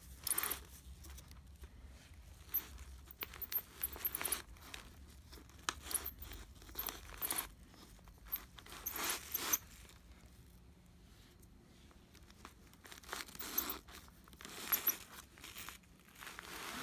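Hands handling the brush roll in a Hoover WindTunnel vacuum's floor head. The plastic parts scrape and click, and the newspaper under it rustles, in irregular short bursts with pauses between.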